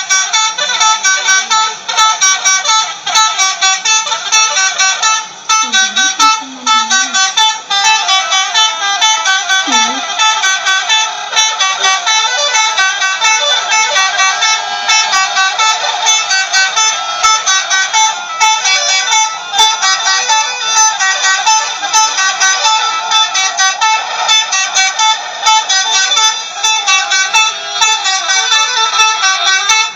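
Indonesian 'telolet' multi-tone bus horns sounding without a break, with quick changes of note in a busy, high-pitched jangle of tunes.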